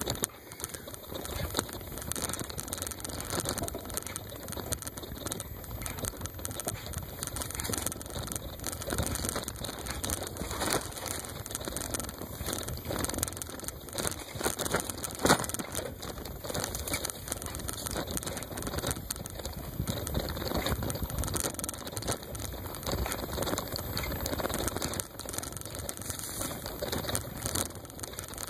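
Bicycle riding over a rough, grassy off-road trail: tyres rolling through grass and dirt with constant rattling and small knocks from the bike, and one louder knock about halfway through.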